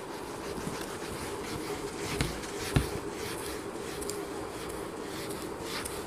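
A handheld whiteboard eraser rubbing across a whiteboard, wiping off marker writing, with two dull knocks a little after two seconds in. A steady hum runs underneath.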